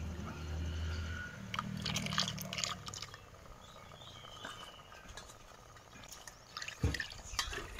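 Lentils boiling in a clay pot, bubbling and ticking, with one sharp knock near the end.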